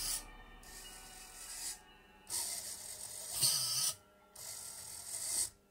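Servo motors of a 3D printed delta robot whirring in three bursts of about a second and a half each as the arm moves. Faint background music lies under them.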